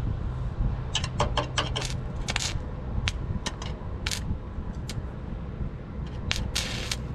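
An engine running steadily at idle, with irregular sharp metallic clinks and taps over it and a short scrape near the end.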